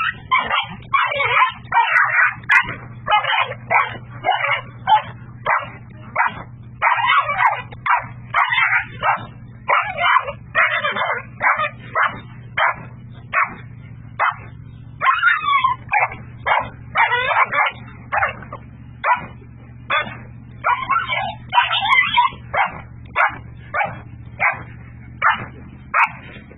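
A dog yelping and barking over and over, one or two short high calls a second, in distress as a rooster attacks it. A steady low hum runs underneath.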